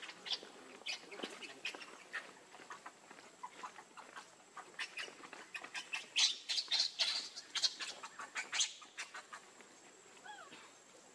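Baby pig-tailed macaque giving short, high squeaks and squeals in irregular runs, loudest and quickest from about six to nine seconds in.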